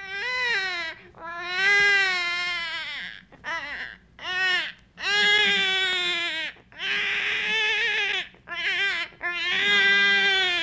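Crying that sounds like a baby: a run of about eight wailing cries with a wavering pitch, each from half a second to two seconds long, with short breaks between them.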